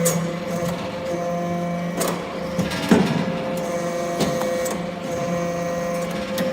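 Hydraulic scrap-metal briquetting press running: a steady hum from its pump drive, with a few metallic clanks and knocks, the loudest about three seconds in.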